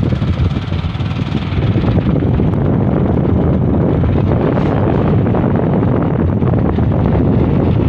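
Wind rushing over the microphone of a moving motorcycle, steady throughout, with the engine and tyre noise running beneath it.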